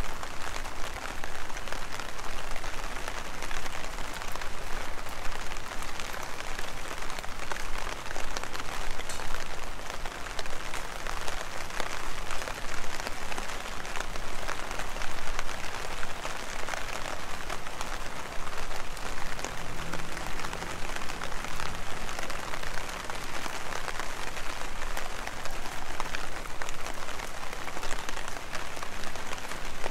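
Heavy rain falling steadily: a dense, even wash of many small drops striking surfaces.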